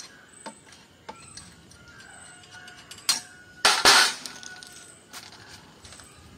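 Light clicks, then two loud metal clatters about three and four seconds in, as a motorcycle front fork tube is worked loose in its clamps.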